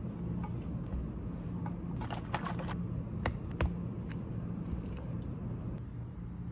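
Small handling noises: a scattering of short clicks and scrapes, the sharpest two about three seconds in, over a steady low hum.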